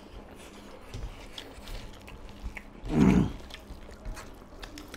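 Mukbang eating sounds close to the microphone: chewing and biting of fried bora fritters with rice, with small clicks of fingers and food on steel plates. About three seconds in comes one brief, louder low sound.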